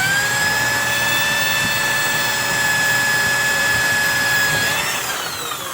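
Electric power drill running at steady speed with a high motor whine, then spinning down, its pitch falling, about five seconds in.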